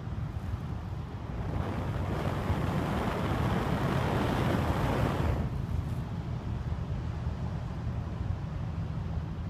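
Crumpled paper pages burning, with a steady low wind rumble on the microphone. A louder rush swells for about four seconds in the middle as the glowing paper flares up into flame, then dies back.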